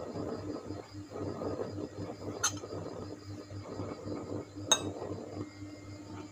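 Wooden chopsticks working beef through marinade in a ceramic bowl: wet squishing and stirring, with two sharp clinks of the chopsticks against the bowl, the second one louder, about two and a half and four and a half seconds in.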